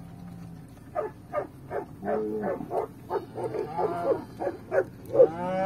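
Herding dog barking in short repeated barks, roughly two a second, among a herd of cattle; a loud, long moo from a cow starts near the end.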